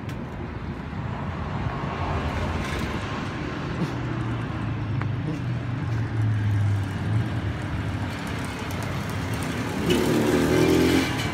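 Road traffic on a city street: vehicle engines running and passing, louder near the end as one vehicle goes by close.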